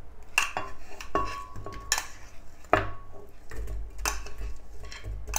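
Frozen banana chunks dropping into a glass blender jar, making a string of irregular hard clinks and knocks against the glass and blades, some with a short ring.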